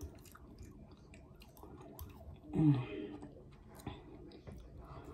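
Close-miked chewing and mouth sounds from eating soft chicken and mashed potatoes, with faint clicks of a fork against the plate and a short voiced sound falling in pitch about two and a half seconds in.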